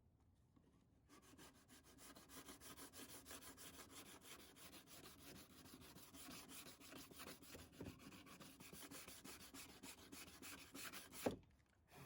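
80-grit sandpaper rubbed back and forth by hand over the rust spots on a car fender, a quick even rhythm of scraping strokes that starts about a second in, stopping with a single sharp knock near the end.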